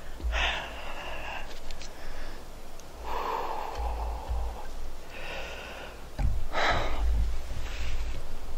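A man breathing hard and heavily, a few loud separate breaths and exhales, from the excitement of having just shot a deer with his bow.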